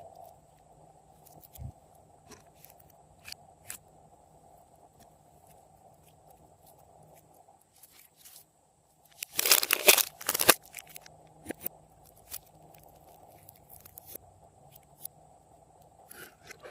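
Glossy slime with pieces of hard candy mixed in being pressed and worked by hand: scattered soft clicks and pops, then a loud burst of crunching and crackling lasting about a second and a half, a little past halfway.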